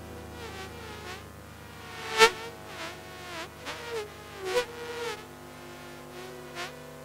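Layered electric toothbrush buzzing, set to imitate a swarm of bees. Buzzing tones swoop down in pitch and back up again and again, like insects flying past, over a steady drone. A sharp click about two seconds in is the loudest moment.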